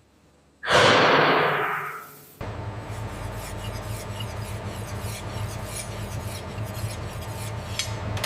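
A sudden loud hiss that fades away over about a second and a half, then a steady low mechanical hum with faint rapid ticking.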